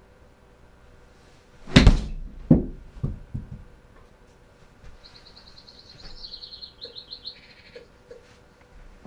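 A wedge strikes a golf ball, almost at once followed by the ball smacking into the simulator's impact screen, then a few fading thuds as the ball drops back and bounces. A few seconds later comes a rapid high-pitched chirping that steps down in pitch.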